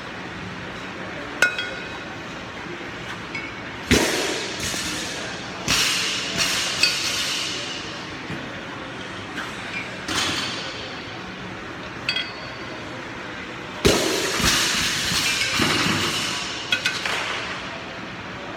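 A pair of 8 kg kettlebells knocking and clinking together through repeated two-arm jerks. There are sharp metallic knocks with a short ring every one to three seconds, as the bells are driven overhead and dropped back into the rack.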